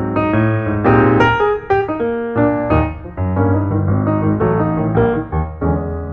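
Background piano music, a quick run of notes over steady low chords, settling on a held chord near the end.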